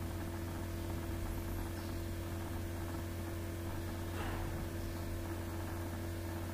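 Steady low electrical hum under a constant hiss, the background noise of the recording setup, with a faint brief sound about four seconds in.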